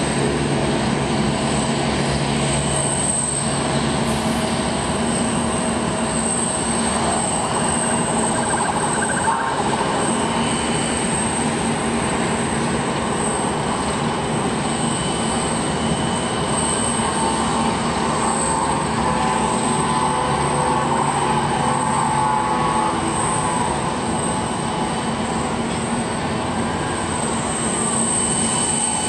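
Steady jet aircraft engine noise: a continuous rushing sound with a low hum and a whine. Faint falling tones come in the second half.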